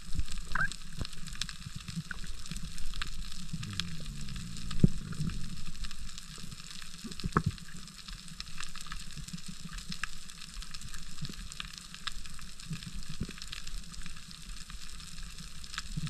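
Underwater reef crackle: a constant fizz of countless tiny clicks, typical of snapping shrimp, over a low rumble of water.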